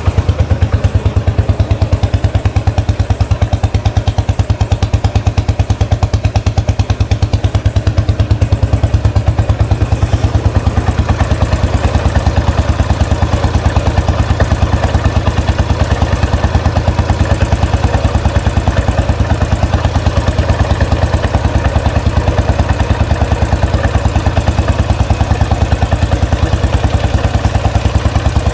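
Royal Enfield Classic 500 single-cylinder engine idling steadily on its first run after a rebuild, with even, regular exhaust pulses.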